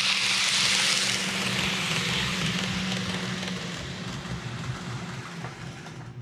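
Greenmax N gauge Kintetsu 3220 series model train running past close by: a rushing rattle of wheels on rail with a steady hum, loudest about a second in and fading as the train moves away. The hum stops about three and a half seconds in.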